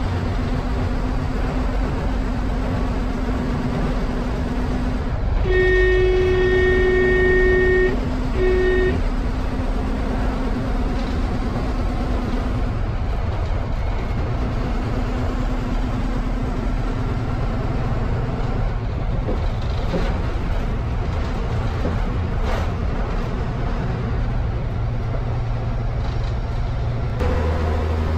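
MSRTC bus's diesel engine running under way, heard from inside the cabin with road noise. About five seconds in, a horn sounds one long blast of a couple of seconds, then a short toot.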